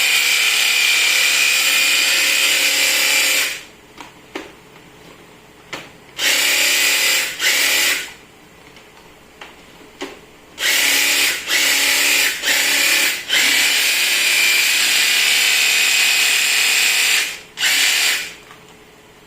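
Makita DUH601 18V cordless hedge trimmer running in repeated trigger pulls, a steady high whine that cuts in and out: a run of about three and a half seconds, a few short blips and shorter runs, then a longer run of several seconds before it stops.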